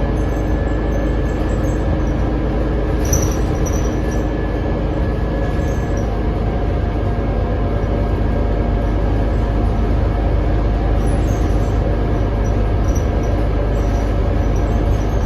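Cabin sound of a 2019 New Flyer XD40 diesel transit bus underway: a loud, steady rumble with several held whining tones over it, and brief high squeaks a few times. The whine is an unusual bus noise that the rider finds insane and cannot explain.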